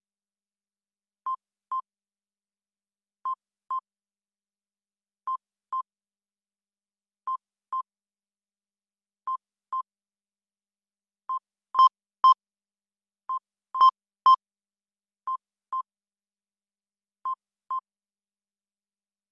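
Short electronic beeps in pairs, repeating every two seconds: the alert tone of earthquake-monitoring software. Around the middle, two groups run to three beeps, with the later beeps louder.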